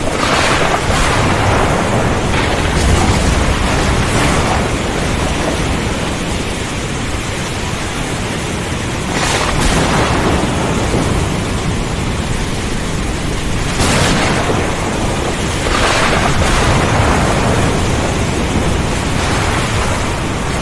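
Heavy rain pouring steadily in a thunderstorm, with sharp thunder cracks several times and a low rumble a few seconds in.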